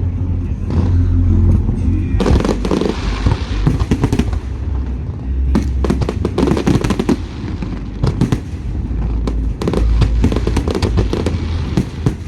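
Aerial fireworks bursting in rapid volleys: three dense runs of sharp crackling bangs over a continuous deep rumble.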